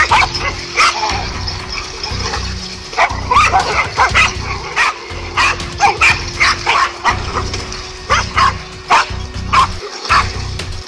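Several dogs barking in quick, overlapping bursts as they attack a snake.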